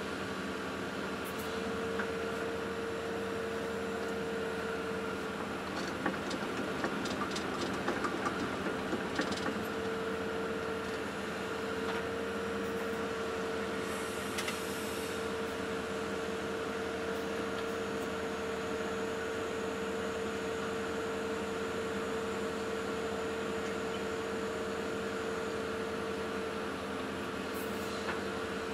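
Hydraulic excavator's engine and hydraulics running under load, heard from inside the cab, with a steady whine over a constant hum as the boom and bucket move sand. A run of light clicks and rattles comes about six to nine seconds in.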